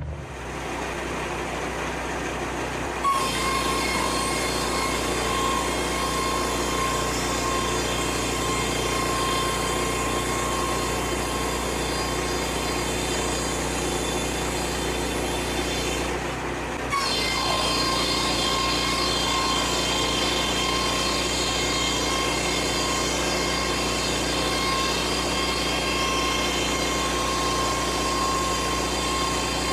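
Engine-driven board edger running steadily. About three seconds in it steps up to a louder, higher whine with a strong high tone. Past the midpoint it dips briefly and picks back up.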